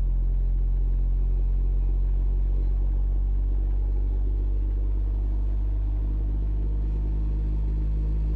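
WLLDSE HCY-12 12-inch car subwoofer playing a steady deep bass test tone under high power, with buzzy overtones above the fundamental, as it is driven hard for a dyno power test.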